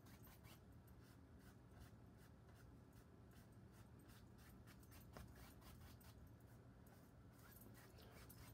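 Faint, quick scratchy strokes of a wide bristle brush rubbed back and forth over oil paint on a stretched canvas, a light blending pass, several strokes a second.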